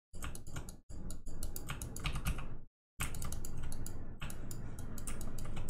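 Computer keyboard clicking in quick runs of keystrokes, dropping out to dead silence twice.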